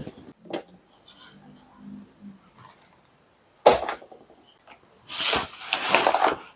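A large thin sheet being shaken out and flapped open, a loud rustle about five seconds in that lasts just over a second. A short, sharp rustle comes shortly before it, near four seconds in.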